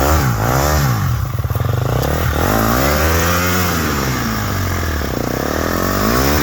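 Dirt bike engine revving up and down in repeated bursts, with one longer rev in the middle, as the rider works the bike over a slippery log.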